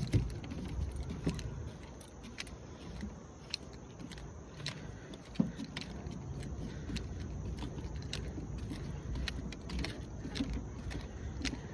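Footsteps and light irregular clicks and knocks on the wooden plank deck of a suspension footbridge, over a steady low wind rumble on the microphone.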